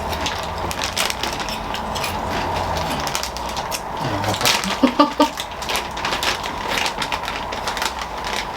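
Cheese ring snacks being chewed and crunched close to the microphone: many short, irregular crunches, with a brief hum of a voice about five seconds in.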